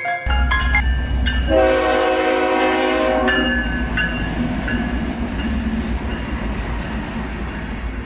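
Freight train passing close by with a steady low rumble. About a second and a half in, the locomotive's air horn sounds one long blast lasting about two seconds.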